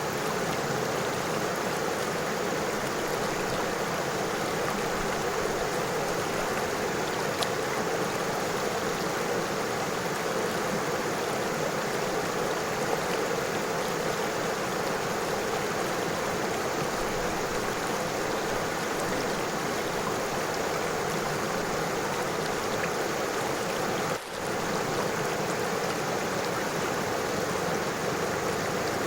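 A river flowing: a steady, even rush of running water, dipping for a split second about three quarters of the way through.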